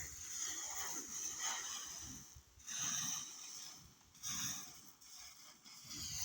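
Dry shelled maize grain rustling and pattering as it is scooped and spread out to air, in repeated swishes about a second apart.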